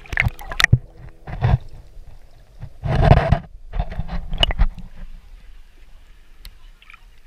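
Water sloshing and gurgling around a camera dipping in and out of the surface, with irregular splashes and a louder rush of water about three seconds in.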